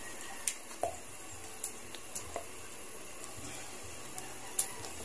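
Thick palabok sauce being scooped out of a large aluminium pan with a bowl and spoon: a few faint, scattered clicks of the spoon and bowl and soft squelches of the sauce over a steady low background.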